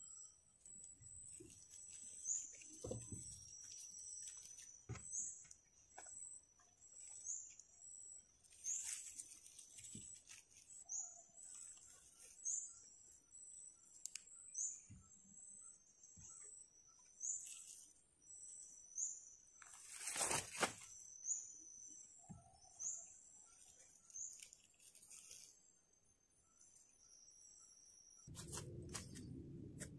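Faint forest ambience: a long series of short, high chirps from a small animal, about one a second and alternating between two pitches, with scattered light clicks and knocks. A brief rustle comes about twenty seconds in, and a low rushing noise starts near the end.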